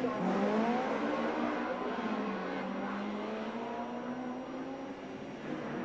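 Racing touring car engines at high revs as the cars accelerate, rising in pitch and then holding steady. A fresh rise in pitch comes near the end.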